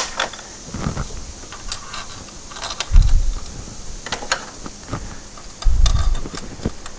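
Small steel bolts clinking and rattling as they are picked up and handled to be started by hand in an oil filter housing, with scattered light clicks and two dull thumps, about three seconds in and near the end.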